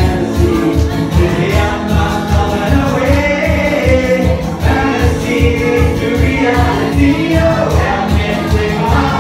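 A male singer performing live while strumming an acoustic guitar in a steady, quick rhythm, heard through the venue's PA.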